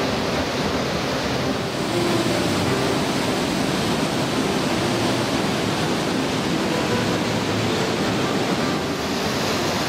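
Whitewater river rushing through a narrow rock gorge: a steady, even rush of rapids.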